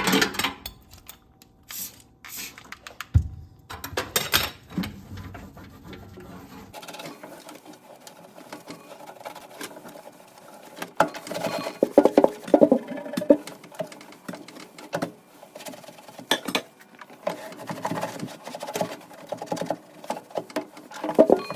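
A Norwex diamond weave kitchen cloth rubbing and wiping the inside of a microwave, an irregular scuffing, scrubbing sound with a few light knocks against the oven walls or tray.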